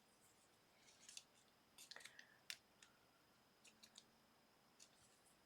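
Faint, sparse clicks and short scrapes of small tools working on a mobile phone's plastic and metal parts during disassembly.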